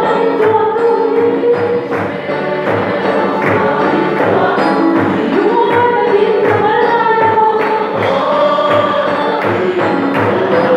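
A congregation singing a hymn together in chorus, voices holding long notes over a drum beating steady time at about two beats a second.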